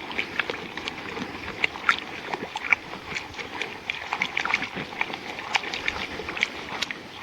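Charcoal, rocks and nails being stirred in water so the heavy pieces settle out by weight: irregular clattering knocks, several a second.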